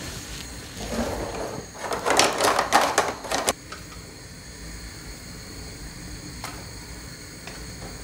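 A metal utensil clattering and scraping against a stainless steel pot as spaghetti is stirred into boiling water. The clattering stops sharply about three and a half seconds in, leaving a faint steady background with a couple of light clicks.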